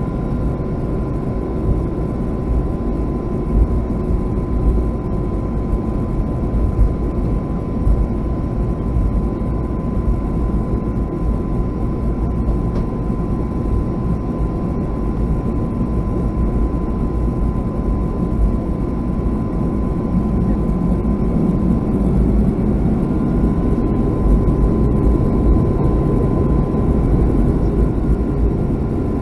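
Boeing 757-200 twin-jet airliner heard from inside the cabin while taxiing: a steady low rumble of the engines near idle with a thin, constant whine, a few short thumps in the first several seconds, and slightly louder after about twenty seconds.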